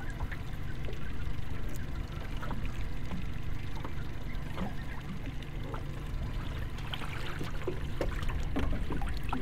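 Water pouring and trickling off a wet rope as a crayfish pot is hauled up hand over hand from the water, with small scattered drips and splashes over a steady low rumble.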